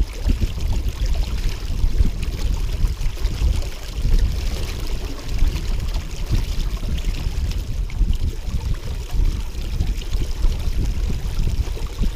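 Water rushing and splashing along the hull of a small sailboat under way, with wind buffeting the microphone in an uneven, gusty rumble.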